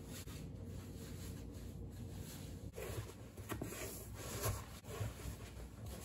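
Soft rustling and a few light knocks from clothes and small items being handled, most of them in the second half, over a low steady room hum.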